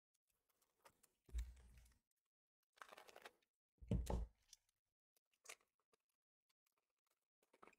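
Faint rustling and crinkling of a foil trading-card booster pack and cards being handled, in a few short bursts; two of them, about a second and a half in and about four seconds in, carry a dull bump.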